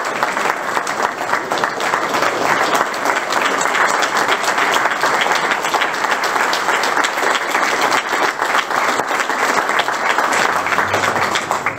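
Audience applauding: many people clapping steadily, the applause dying away at the very end.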